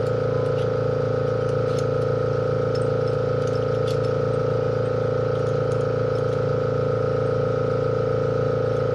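Steady machine hum made of several fixed tones over a hiss, unchanging throughout, then cutting off abruptly at the very end.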